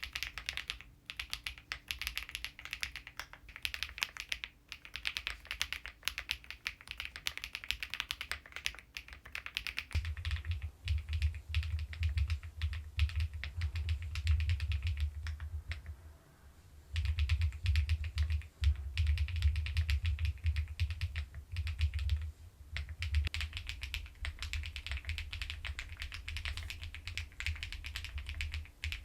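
Fast, continuous typing on an Epomaker EK75 mechanical keyboard, a dense run of keystroke clacks. From about a third of the way in the strokes carry a deeper thud, and the typing stops briefly a little past halfway.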